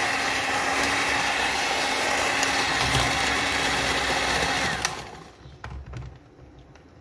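Moulinex electric hand mixer running steadily with a constant whine, its beaters whisking runny egg batter in a plastic bowl. It is switched off about five seconds in and the motor winds down, leaving only a few faint knocks.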